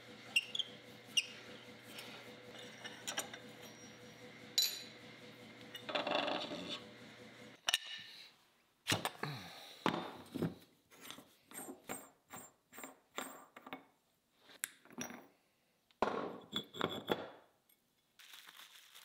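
Steel grinding-wheel mounting hub and flange parts being handled and taken apart by hand: scattered light metal clinks and knocks, with a couple of short rubbing stretches.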